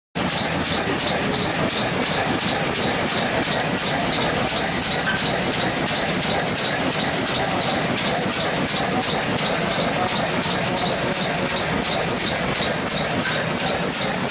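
A 15 HP Fairbanks-Morse Z stationary engine running steadily with an even, rapid beat, driving a lineshaft and its leather belting to the shop machines.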